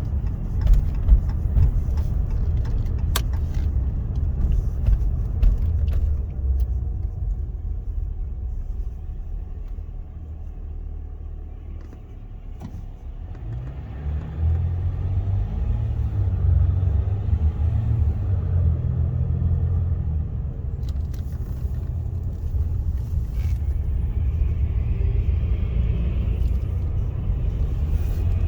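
Cabin noise of a 2015 Ram 1500 EcoDiesel pickup on the move: steady low road and drivetrain rumble with scattered light rattling clicks, which the owner puts down to the steering-wheel horn button buzzing. The rumble eases about ten to twelve seconds in, then builds again.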